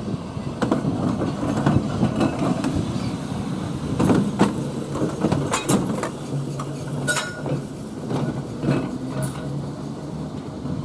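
Sheffield 510, a double-deck electric tramcar, running along its track with a steady rumble, its wheels clicking and clunking at rail joints and pointwork, and a low steady hum in the second half.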